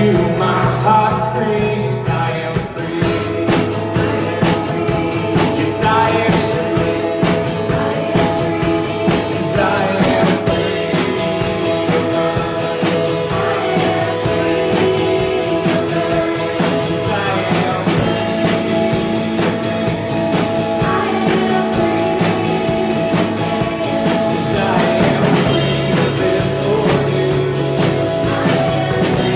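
Church worship band playing a song with singing, drum kit and other instruments; the drums and cymbals come in about three seconds in.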